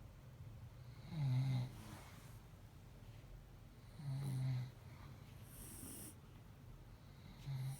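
A sleeping kitten snoring: three low snores on the in-breath, about three seconds apart, with a short high hiss between the second and third.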